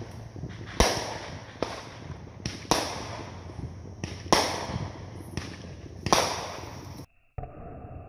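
Aerial fireworks bursting: a string of sharp bangs roughly one a second, each trailing off in echo, with smaller pops between them. About seven seconds in the bangs cut off abruptly, leaving a fainter, muffled noise.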